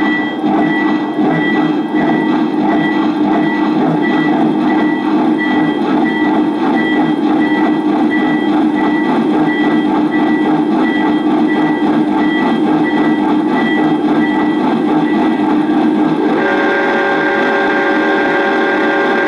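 Lionel AC-9 2-8-8-4 O-gauge model steam locomotive's TMCC sound system running: Dyna Chuff steam chuffing with a bell ringing evenly. About 16 seconds in, a steady multi-tone whistle comes in and holds to the end.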